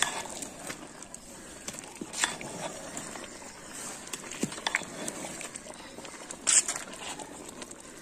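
Large pot of basmati biryani rice simmering, the shallow water left above the rice bubbling and popping, with a ladle clinking and scraping against the pot a few times, most sharply about two seconds in and again near six and a half seconds.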